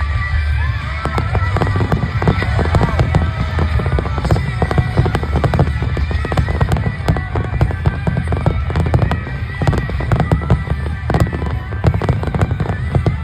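Aerial fireworks going off in rapid succession, a dense run of sharp bangs and crackles over a low rumble, with music playing alongside.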